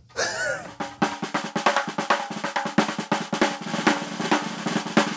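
Snare drum roll with rapid drum hits over a few sustained musical tones, an entrance music sting.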